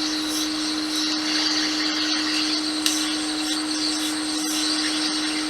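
Hot-air rework gun blowing steadily: a hiss of air over a steady fan hum, heating a liquid-damaged capacitor on a logic board to desolder it.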